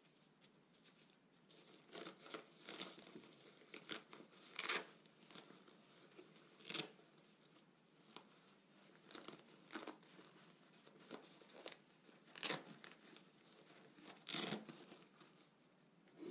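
Faint, intermittent rustling and scratching of a padded nylon camera-bag divider being fitted into the compartment, with short hook-and-loop rasps as it is pressed into place.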